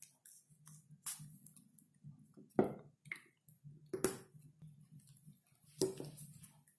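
Light knocks and clicks of craft supplies being handled and set down on the table, four or five of them about a second apart, over a faint low hum.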